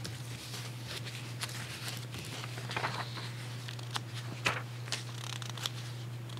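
Soft rustling and scattered light clicks of handling while a scripture passage is looked up, over a steady low hum.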